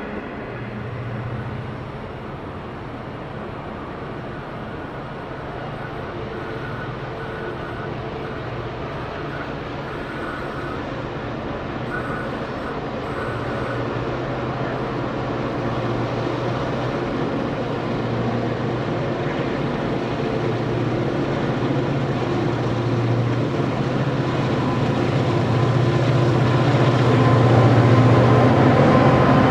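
C class diesel-electric locomotive working hard up a steep grade, its engine drone growing steadily louder as it approaches and draws level.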